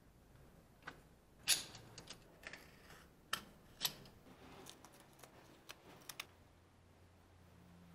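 Workbench handling noises: a scatter of sharp clicks, taps and crinkles as plastic wrap is peeled off a knife handle and pieces are handled on the bench. The loudest is a crackle about a second and a half in, and the noises stop about six seconds in.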